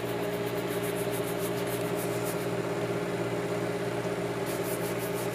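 Electric motor of a shoe repair finishing machine running with a steady hum, with faint rapid ticking high up through parts of it.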